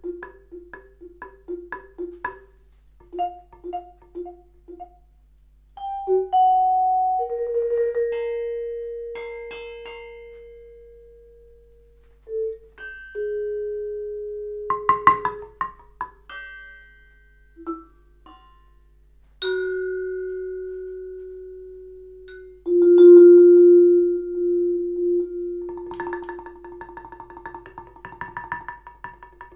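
Yamaha vibraphone played with mallets in a free improvisation: quick repeated notes at first, then single long notes left ringing and slowly dying away. A cluster of sharp strikes comes about halfway, and fast repeated notes return near the end.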